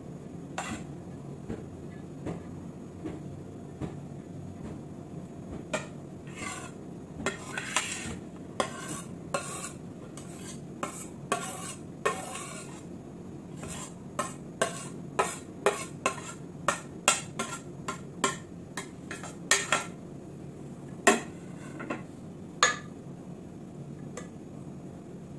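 A metal spoon clinking and scraping against a metal plate and the rim of a large metal pot as cooked rice is pushed into the pot and spread into a layer. The clinks are irregular and come thickest through the middle, over a steady low hum.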